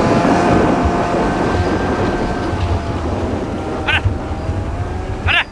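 Snowmobile engine running at a steady pitch and slowly getting quieter, over a low rumbling noise. Two brief high cries cut in near the end.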